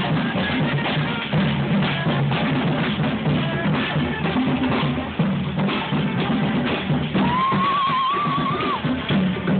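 Parade band music with a steady drum beat, bass drum and snare hits over a sustained low accompaniment. About seven seconds in, a high wavering tone joins for a second and a half.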